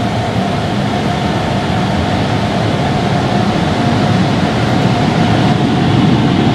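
Automatic car wash heard from inside the car: a loud, steady rush of high-pressure water jets striking the car body, with a steady machine hum underneath, slowly growing louder.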